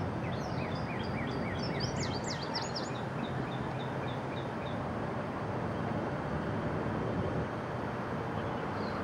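A small songbird calling with a quick run of repeated chirps for the first few seconds, over a steady outdoor background rumble.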